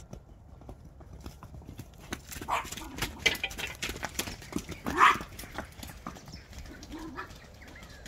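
Hoofbeats of horses walking and trotting in over muddy ground, an irregular run of knocks, with a short, loud animal call about halfway through.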